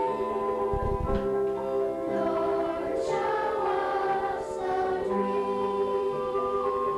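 Youth choir singing held notes in harmony, with a brief low rumble about a second in.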